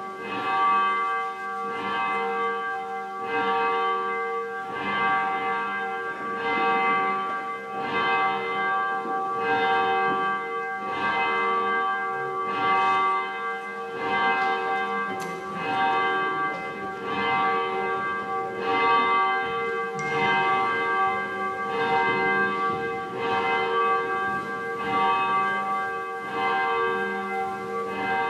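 Church bell ringing, struck over and over at a steady pace, each stroke ringing on into the next.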